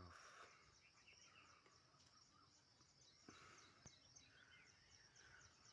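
Faint birds chirping and twittering in many short calls, over a steady high-pitched hiss.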